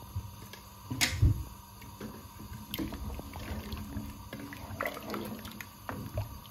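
A wooden spoon stirring cubed potatoes in a large steel pot of water, the water sloshing. A couple of sharp knocks come about a second in, then lighter knocks and taps of the spoon and potatoes against the pot.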